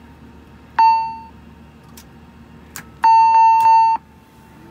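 Electronic chime tones in an Embraer jet's cockpit as the batteries are switched on: a short chime about a second in, then a louder, longer tone of about a second near three seconds in, with a couple of faint switch clicks between, over a steady low hum.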